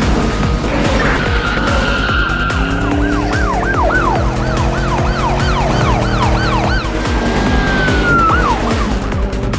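Police siren wailing: a held tone that breaks into a fast up-and-down yelp, about three sweeps a second, then settles back to a held tone that falls away near the end. Background music with a steady beat runs underneath.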